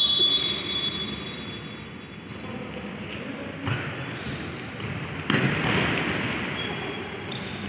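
Futsal ball being kicked and bouncing on a wooden indoor court, with players' footsteps, all echoing through a large sports hall; the sound jumps louder suddenly at the start and again about five seconds in.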